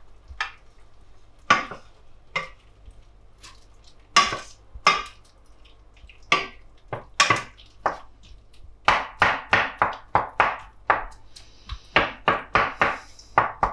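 Wooden spoon stirring chopped tomatoes in a stainless steel pot, scraping and knocking against the pot: a few scattered strokes, then a quick run of about three strokes a second over the last few seconds.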